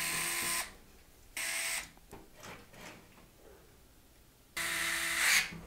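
Small cordless electric screwdriver whirring in three short bursts: one at the start, one about a second and a half in, and one near the end. It is working the AIO radiator's mounting screws in a PC case's top panel. Faint clicks fall between the bursts.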